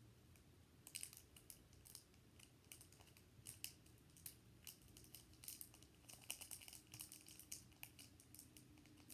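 Faint, irregular crinkling and clicking of a foil Pokémon booster pack wrapper being worked and torn open.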